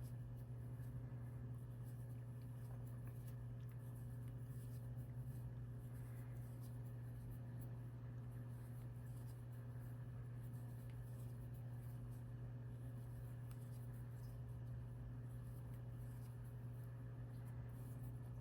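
Faint rustling and light scratchy ticks of a crochet hook working yarn through stitches, over a steady low hum.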